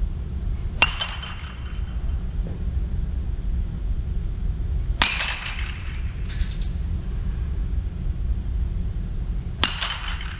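Baseball bat hitting tossed balls in batting practice, three sharp cracks about four to five seconds apart, each with a brief ringing tail, over a steady low rumble.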